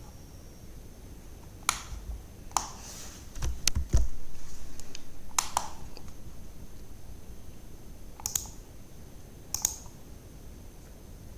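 Scattered clicks of a computer mouse, a second or more apart and some in quick pairs, with a dull thump about four seconds in. A faint steady high whine sits underneath.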